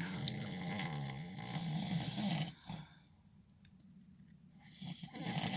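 A sleeping man snoring: one long snore with a wavering pitch, a short pause, then the next snore starting near the end.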